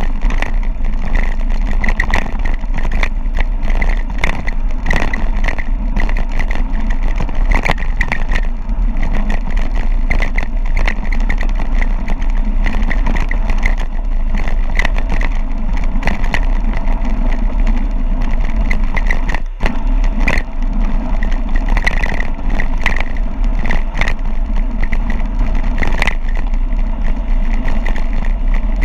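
Steady wind rush on the microphone and tyres on a rough gravel road, with frequent rattles and clicks from a mountain bike descending at speed; the noise briefly drops out once about two-thirds of the way through.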